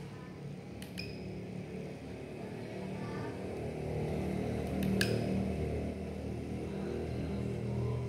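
Engine sound module of an MN D90 1/16 RC truck playing a simulated engine idle through its small speaker, getting louder about three seconds in. A few sharp clicks come about a second in and again about five seconds in.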